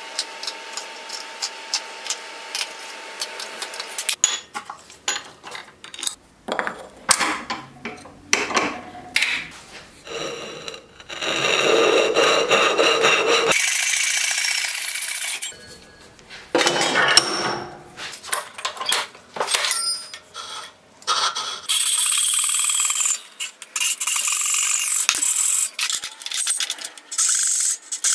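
A hand saw cutting through a hardwood block clamped in a vise, stroke after stroke in short runs. At the start there are a few seconds of a hand tool scraping inside a drilled hole in the wood.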